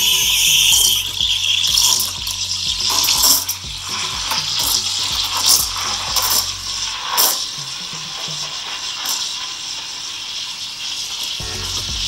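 Gaggia Classic Pro steam wand hissing into a jug of milk, steaming and texturing it for a flat white; the hiss rises and falls in strength. A low hum runs under it and stops about seven seconds in.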